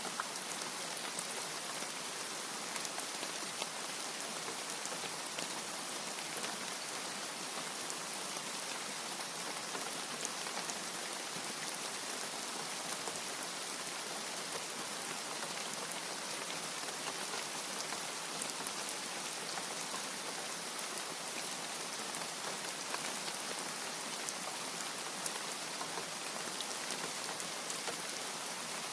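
Steady rain with a dense patter of drops striking a surface, an even hiss without thunder.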